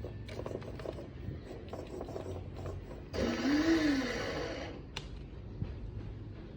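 The MJX Hyper Go 16208 RC car's electric drive motor and gears whirring up and back down in a single throttle blip about three seconds in, lasting about a second and a half. Small clicks and handling noises come before it, and a single sharp click follows just after.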